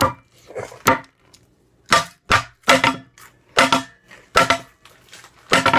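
A sword chopping down again and again onto a hard surface, trying to cut a Cheeto: about nine sharp strikes at irregular intervals, each with a short ring.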